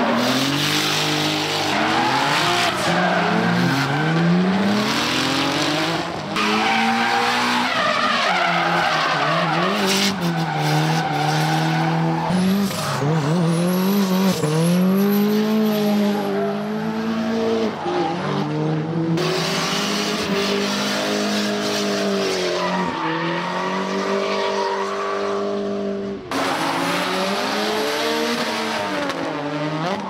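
Hyundai Genesis Coupe drift cars sliding through corners: engines revving up and down over and over, with tyres squealing and skidding. Several passes are cut together, so the sound changes abruptly a few times.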